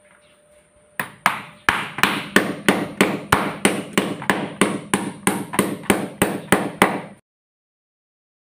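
Hammer blows on a wooden form board: a fast, even run of sharp knocks, about four a second, that starts about a second in and cuts off suddenly near the end.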